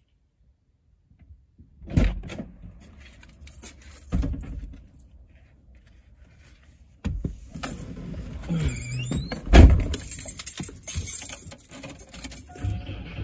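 Subaru driver's door opened about halfway through, someone climbing into the seat with clatter and rustling, and the door shut with a loud thump, followed by keys jangling. Near the end a steady low hum starts.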